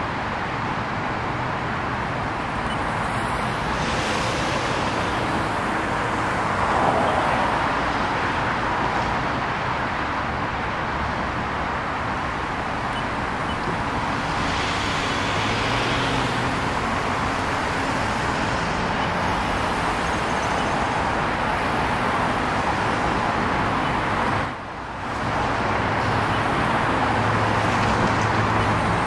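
Steady road traffic at a street intersection: cars and SUVs driving through, a wash of tyre and engine noise. The sound drops out for a moment about three quarters of the way through. Near the end an SUV passes close, and its engine hum comes up.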